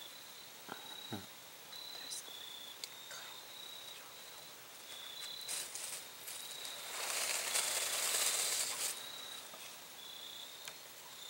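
Crickets trilling steadily in short, high-pitched phrases. About seven seconds in there is a rustling hiss lasting about two seconds, the loudest sound, and a couple of faint clicks come about a second in.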